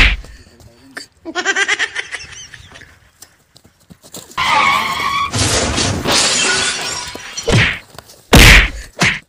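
Comedy sound effects: a loud sudden hit, a short wavering pitched sound, then a long crash with shattering and breaking noise as the bicycle collision happens, and a few heavy thuds near the end.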